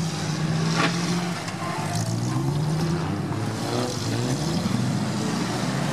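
Off-road vehicle engine running, its pitch rising and falling as it is revved. There is a single sharp click about a second in.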